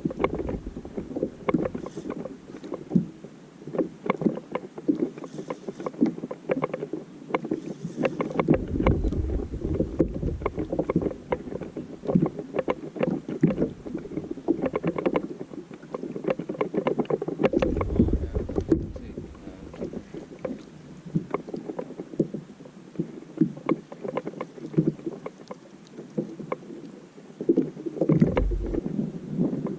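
Water slapping and knocking against a small boat's hull in quick, irregular splashes, with gusts of wind buffeting the microphone about a third of the way in, again past halfway, and near the end.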